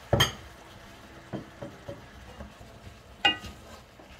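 Wooden spoon stirring sliced mushrooms in a milky sauce in a nonstick frying pan, with a faint sizzle. The spoon knocks sharply against the pan right at the start and again about three seconds in, with lighter taps between.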